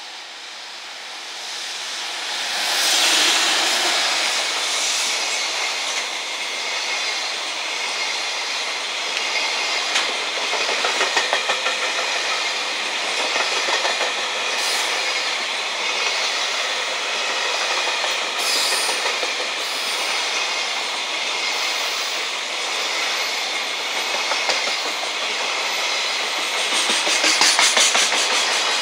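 A container freight train hauled by an EF210 electric locomotive passing close by: the sound grows louder over the first three seconds as the locomotive comes past, then the long string of container wagons rolls by with a steady clickety-clack of wheels over the rail joints, the clacking quickening near the end.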